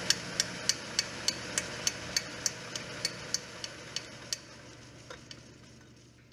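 Lathe running with a regular banging of about three knocks a second over a steady motor hum. The metal studs of its link drive belt are striking the belt cover, which happens when the cover isn't on right. The knocks stop a little past the middle and the sound fades out near the end.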